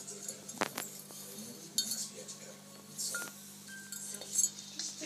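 Ceramic mug knocking and clinking as a small Brussels griffon puppy pushes it around on its side: several scattered short knocks.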